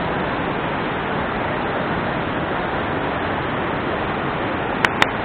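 Steady rush of river rapids pouring over rocks, with two sharp clicks in quick succession near the end.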